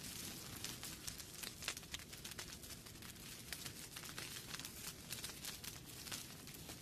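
Wood fire crackling in a fireplace: a dense, irregular run of small sharp pops and snaps over a low rumble.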